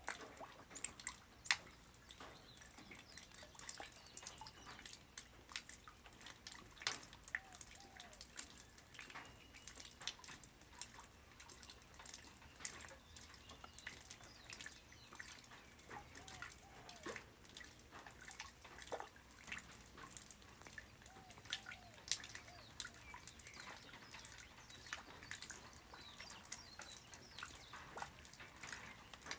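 Light rain falling on the ground, quiet: a dense, irregular scatter of single drops dripping and tapping over a faint hiss.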